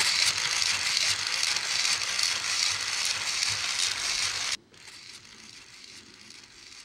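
A loud rushing hiss that cuts off suddenly about four and a half seconds in, followed by a fainter crackling hiss.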